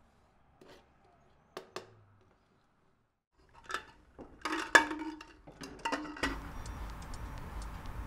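Kitchen clatter: a few knife strokes on a cutting board, then pots and metal lids clanking and ringing, loudest about five seconds in. Near the end the clatter gives way to a steady hiss with faint, evenly spaced ticking.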